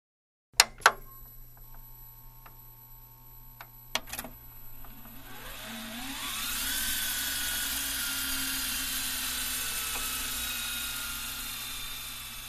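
Two sharp clicks, a few light ticks and two more clicks, then a small motor winds up in pitch over about two seconds and runs on as a steady whir with hiss, like a VCR taking in a tape and spinning up.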